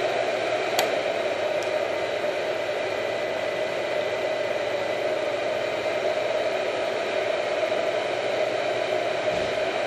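A steady mechanical whir and hum with a hiss, with one light click about a second in.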